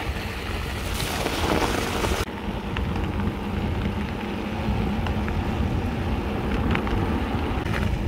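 Mountain bike rolling down a snow-covered trail: a steady rush of tyre noise over packed snow and wind on the microphone, with a few small clicks from the bike. The hiss drops suddenly about two seconds in.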